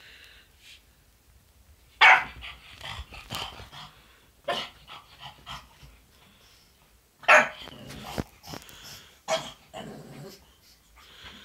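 Pug barking over and over, with the loudest barks about two seconds in and again about seven seconds in, and quieter noises from the dog between them.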